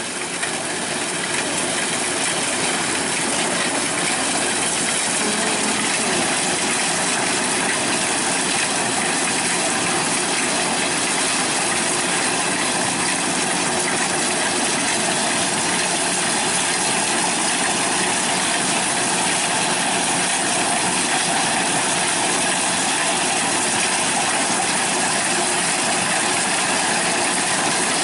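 A machine running steadily with a dense mechanical whirr, starting abruptly at the beginning.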